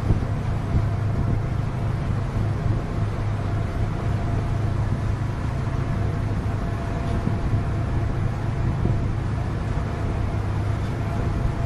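A landing craft's engines drone steadily at sea, a constant low hum, while seawater washes across its open steel main deck, with wind on the microphone.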